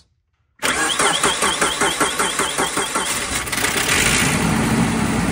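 Chevrolet Tracker engine being cranked by its starter, with a rhythmic chugging of about four to five pulses a second, then catching about four seconds in and settling into a steady run. This is a cold start after the engine had sat for a week.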